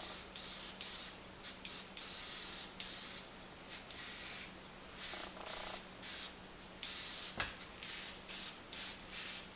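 Airbrush spraying paint in many short on-off bursts of hiss, about two a second with a few longer passes, as the trigger is pressed and released. A faint low steady hum runs underneath, and there is one soft knock about seven seconds in.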